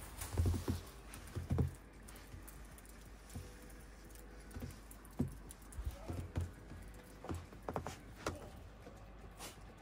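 Footsteps thudding and crunching in deep snow, irregular and uneven, loudest in the first two seconds and fainter after that.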